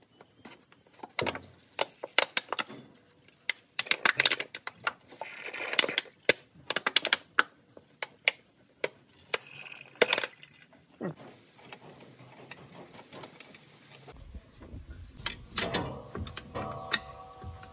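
Irregular sharp clicks, taps and clatters of hand work at a car's brake master cylinder: a plastic bottle and suction tube handled while old brake fluid is drawn off, then a wrench fitted to the metal brake-line fittings. Near the end there is a brief pitched sound with a few steady tones.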